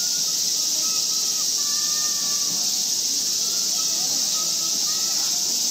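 Steady, high-pitched insect chorus droning without a break, with faint short whistling calls underneath.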